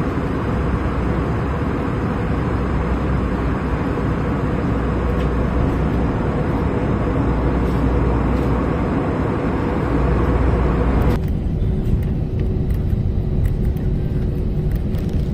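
Steady airliner cabin noise in flight, a wide rushing drone of engines and airflow heard from a window seat. About eleven seconds in it cuts abruptly to a duller, lower cabin drone with a steady hum and a few light clicks, with the plane on the ground after landing.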